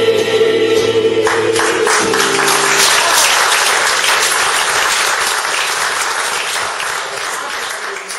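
A small mixed choir holds its final chord, which ends a second or two in, and audience applause breaks out and gradually fades.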